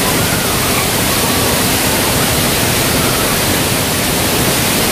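Staged flash flood on a canyon film set: a torrent of water crashing and pouring down the rocks past the tram. It makes a loud, steady rushing noise.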